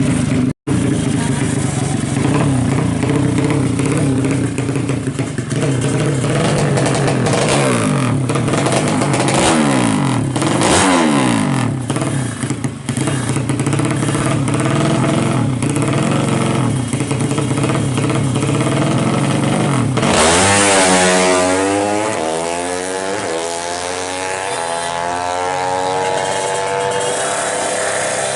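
Modified 200cc racing motorcycle engine running: a steady fast idle, then several throttle blips with the pitch sweeping up and down about eight to twelve seconds in. About twenty seconds in comes a louder burst of revving whose pitch curves down and then settles.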